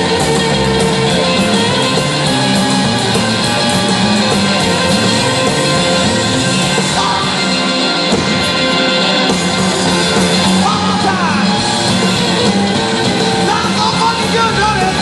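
Live rock and roll band playing loud, with electric guitars and drums in a dense, unbroken mix; a few sliding notes come in from about halfway through.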